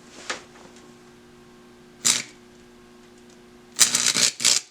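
Stick (arc) welder striking an arc on thin steel pipe: a short crackle about two seconds in, then an irregular sputtering crackle near the end as the arc catches. A faint steady hum sits underneath.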